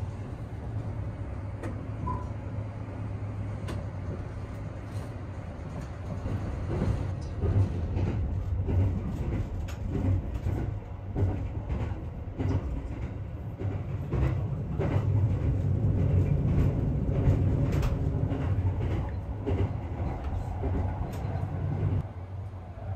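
Sunrise Express 285-series sleeper train running, heard from inside the car: a steady low rumble of wheels on track with scattered clicks and knocks, growing louder about two-thirds of the way through.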